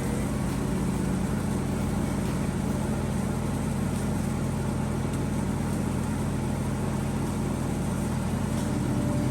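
Riding lawnmower's engine running smoothly and steadily, back in running order after its carburetor was taken apart and the stuck fuel cutoff solenoid freed.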